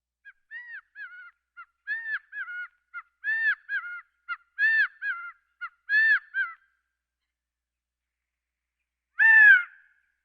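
Gambel's quail calling: short groups of two or three arched notes, repeated about every second and a half and growing louder over the first six and a half seconds. After a pause of a few seconds comes one louder single call near the end.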